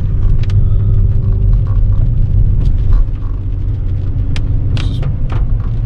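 Car driving, its engine and road rumble heard from inside the cabin, with a few light clicks and creaks; the rumble eases a little about three seconds in.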